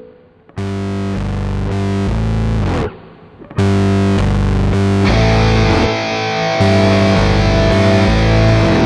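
Rock music with distorted electric guitar chords: the guitar comes in about half a second in, breaks off briefly around three seconds, then the full band plays on, fuller from about five seconds.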